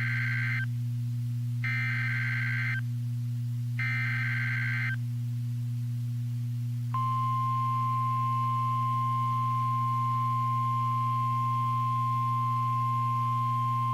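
NOAA Weather Radio Emergency Alert System activation on a weather-radio receiver. First come three short, raspy bursts of the SAME digital header data, then after a short gap the single steady warning alarm tone starts about seven seconds in and holds. The alert announces a hurricane warning, all over a steady low hum.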